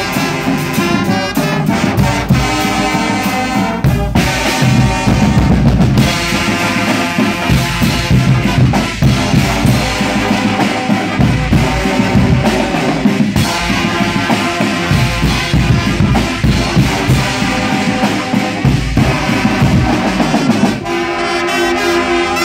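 Guggenmusik carnival band playing: massed trumpets and trombones over bass drums, snare drums and cymbals. The band holds one long chord near the end.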